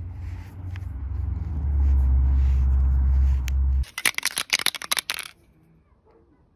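A loud low rumble for about four seconds, then about a second and a half of fast, sharp rattling clicks: an aerosol can of silicone grease being shaken, its mixing ball knocking inside.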